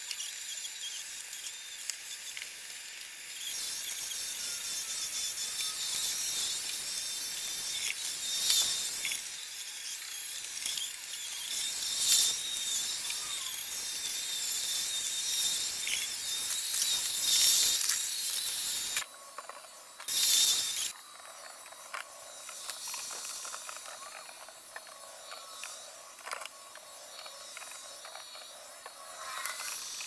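iRobot Roomba 870 robot vacuum running, its sound fast-forwarded into a high-pitched mechanical chatter and hiss with scattered clicks. It drops abruptly about two-thirds of the way through, briefly comes back, then goes on quieter.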